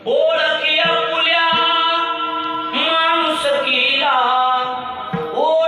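A man singing long, held notes with no words spoken, his voice sliding up into and down out of each sustained pitch in a devotional melody.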